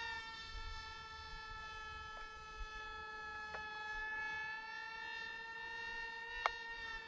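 Twin brushed electric motors and propellers of a BM F-22 RC model jet whining steadily in flight, the pitch sagging slightly near the end, with a few faint clicks.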